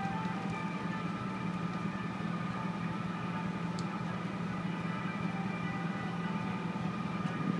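A passenger ferry's engine running steadily at slow no-wake speed: a deep, even drone with a thin steady whine above it.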